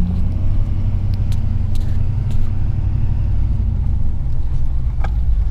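Steady low rumble of a vehicle's engine and road noise while driving, with a few faint clicks.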